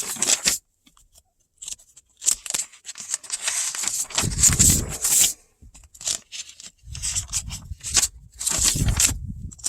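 Irregular clicks, scrapes and rubbing of hands working a plastic wiring connector and its terminals, with heavier rubbing bumps about four seconds in and again near the end.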